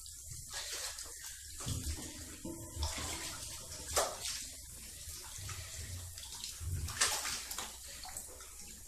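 Water moving and splashing in a bathtub as a person shifts about in it, with a steady watery hiss and two sharper splashes about four and seven seconds in.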